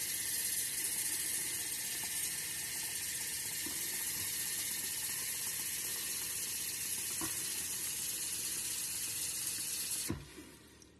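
Tap water running steadily with a hiss, shut off about ten seconds in.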